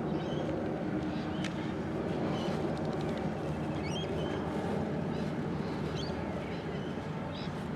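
Four electric motors and propellers of a large-scale Hercules model airplane droning steadily, with several steady low tones.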